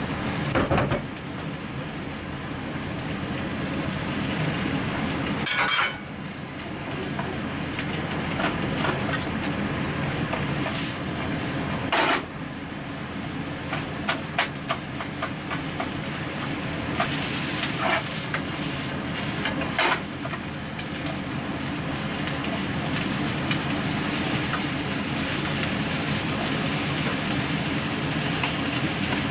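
Bean sprouts stir-frying in a pan: a steady sizzle, with the clack of the cooking utensil against the pan a handful of times.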